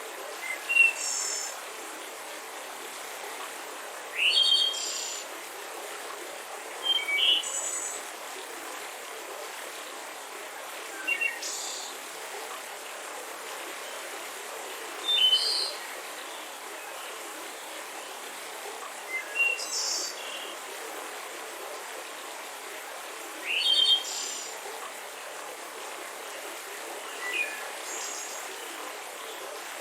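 Mountain river flowing steadily, with a bird repeating a short chirping call about every four seconds.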